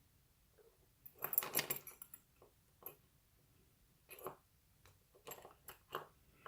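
Small metal lock parts clicking and clinking as they are handled: a rattling cluster of clicks about a second in, then scattered single clicks and short clicky bursts.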